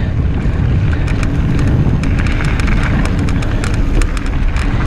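Mountain bike being ridden over a rocky dirt trail: a steady low rumble of wind on the microphone and tyres on the ground, with frequent sharp clicks and rattles from the bike over rocks and gravel.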